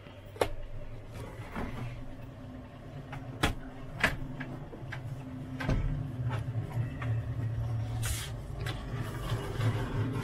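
Vehicle engine idling steadily, with several sharp knocks and clatters a few seconds apart.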